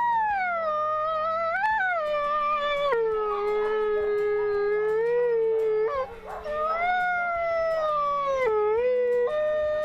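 A wolf howling in long, drawn-out calls whose pitch glides up and down. There is a short break about six seconds in, and another howl begins near the end.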